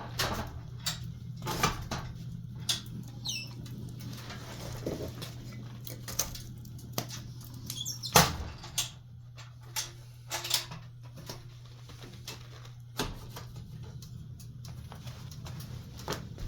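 Firewood crackling and popping as it burns in a wood stove: irregular sharp pops, one louder crack about eight seconds in, over a steady low hum, with a couple of brief high whistles about three seconds in.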